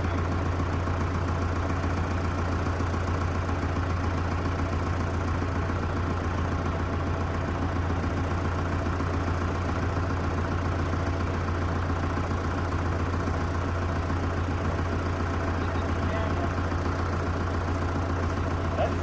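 An old backhoe's engine running steadily at a low, even speed.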